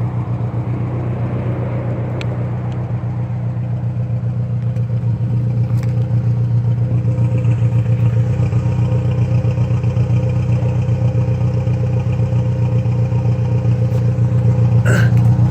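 Saab Aero's turbocharged engine idling, running rough with a fast uneven pulse. The engine is burning oil and mixing oil and coolant after a head gasket replacement; the owner thinks the cylinder 3 sleeve is at fault.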